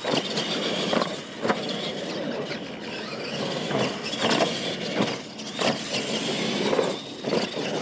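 Radio-controlled monster trucks racing over dirt jumps: electric motors and gears whining, tyres churning dirt, with several sharp knocks of the trucks landing off the ramps.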